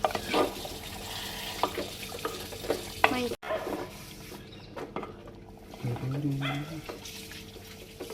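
Spoon stirring and scraping marinated chicken in a clay pot, with a light sizzle and repeated short scrapes and knocks. About six seconds in, a short low animal call is held for under a second.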